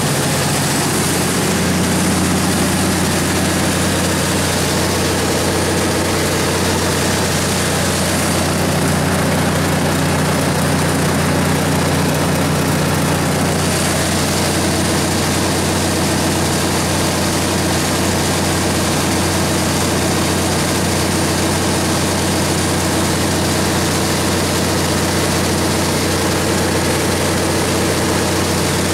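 Cummins NTA-855-G3 turbocharged inline-six diesel engine of a 350 kW standby generator set running steadily at its constant 1800 rpm governed speed, a loud, even drone with a deep hum that does not change.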